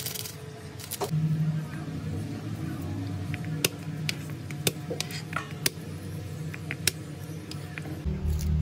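Kitchen knife knocking on a plastic cutting board while garlic cloves are cut: a handful of sharp, irregularly spaced knocks over a low, steady hum.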